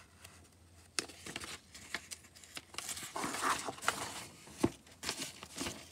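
Comic book page being turned by hand: soft paper rustling, with a few sharp clicks and taps from handling the book.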